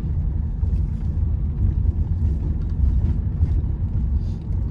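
Steady low rumble of a car on the move, with faint light ticks over it.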